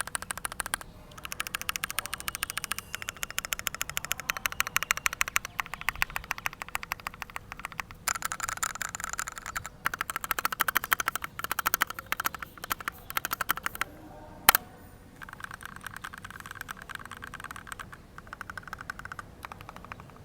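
Typing on a Keychron Q1v2 mechanical keyboard with lubed Gateron Black Ink V2 linear switches in a steel plate: fast, steady keystrokes. There is a short pause about fourteen seconds in with one single loud, sharp click, and the keystrokes are a little softer after it.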